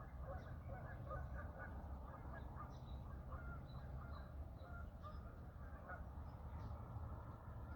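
A flock of Canada geese honking, many short calls overlapping, thinning out near the end, over a steady low rumble.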